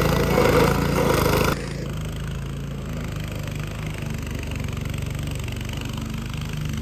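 A loud machine noise cuts off abruptly about a second and a half in, leaving an engine running steadily at a low, even pitch.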